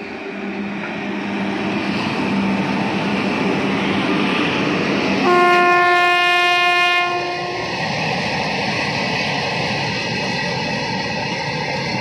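WAG-5 electric locomotives hauling a goods train approach and pass close by, their running noise growing louder. About five seconds in, the locomotive sounds its horn in one loud blast of about two seconds. Then comes the steady running of the freight wagons rolling by, with wheel clicks toward the end.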